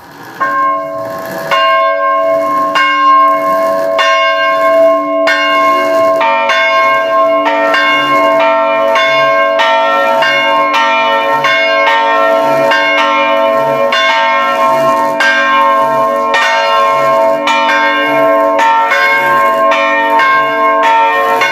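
Antique American church bells swinging with falling clappers, striking over and over in an untuned, overlapping clang. The first bell starts about half a second in, and more bells join within the first few seconds.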